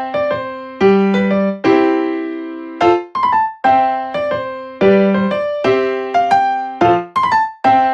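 Background keyboard music: a short phrase of struck, pitched chords, each fading away, repeating about every four seconds.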